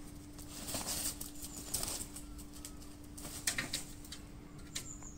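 Peacock's wings flapping as it flies up onto a table, in noisy bursts about one, two and three and a half seconds in, with scattered light clicks between.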